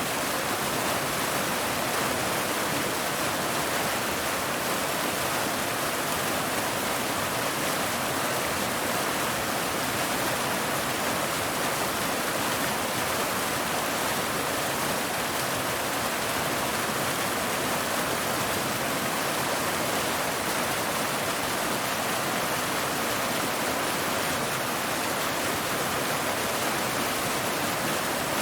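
Waterfall: water falling and splashing over rocks in a steady, unbroken rush.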